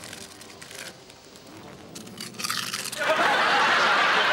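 A crisp packet rustling as the crisps are eaten, with short scratchy crinkles. About three seconds in, a studio audience breaks into loud, sustained laughter.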